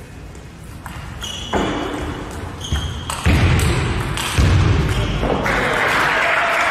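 Table tennis rally in a sports hall: the celluloid-type ball clicking off bats and table, with short high squeaks of shoes on the court floor. A broad wash of noise swells in steps from about a second and a half in and cuts off abruptly at the end.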